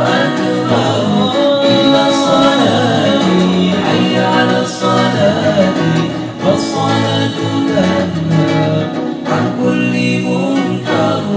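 Group of young men singing a sholawat (Islamic devotional song) together, accompanied by a strummed acoustic guitar.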